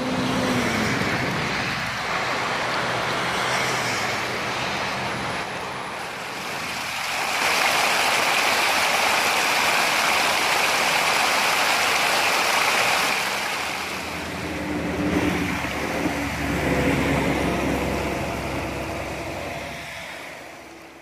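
Muddy rainwater runoff rushing over rocks and rubble in a stony channel, loudest in the middle stretch. A low engine hum from road traffic comes through at times.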